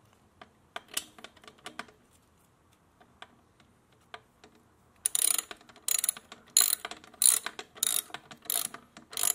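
Socket ratchet on an extension clicking as it tightens an exhaust bracket bolt, the nut held with a wrench. A few light ticks at first, then from about halfway steady ratcheting in repeated strokes, about two a second.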